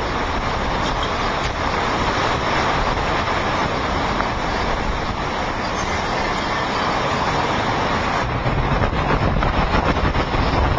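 Hurricane wind and heavy driving rain: a loud, steady rushing noise that turns louder and more uneven in the last few seconds.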